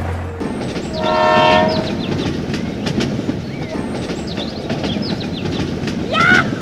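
A single horn blast lasting about a second, a steady tone, with small birds chirping throughout. Near the end a rooster starts to crow.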